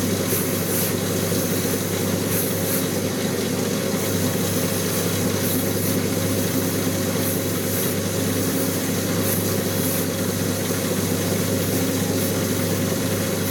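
Shoe finishing machine's motor running steadily while a stained leather outsole is pressed against its rotating wheel, with a short high hiss every second or two as the sole is worked across it. This is the final buffing stage after staining, which strips excess stain and dries the surface.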